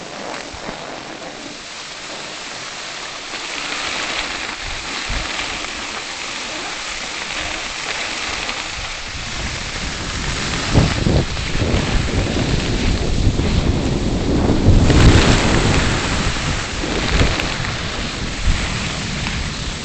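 Skis hissing and scraping over groomed snow on a downhill run, with wind buffeting the microphone. The noise grows louder through the run, and the rumbling gusts get heavier from about halfway.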